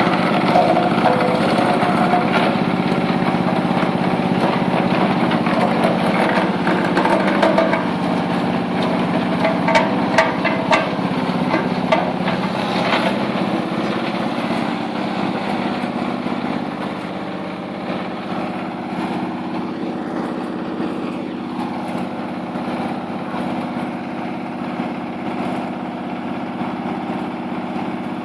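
Wood crusher machine running with a steady engine-like drone. Between about eight and thirteen seconds in there is a spell of sharp cracks and clatter. After that the drone settles a little quieter and steady.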